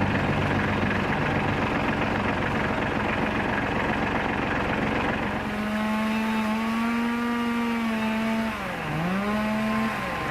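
A small engine running with a steady, noisy drone; about halfway through, a clear pitched engine note comes in, holds, then drops sharply in pitch and recovers near the end.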